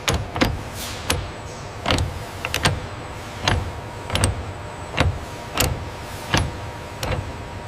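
Sharp mechanical clanks repeating about every three-quarters of a second, some in quick pairs, over a steady low machinery hum.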